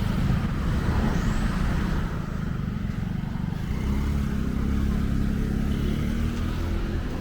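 Motor vehicle running: a steady low rumble, with an engine hum that comes up about four seconds in and fades near the end.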